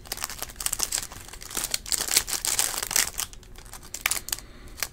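Clear cellophane wrapper of a Panini trading-card pack crinkling and crackling in quick, irregular bursts as hands work it open.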